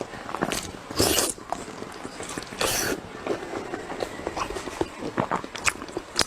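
Close-miked eating sounds: many small wet mouth clicks, with two louder noisy bursts, about a second in and near the three-second mark.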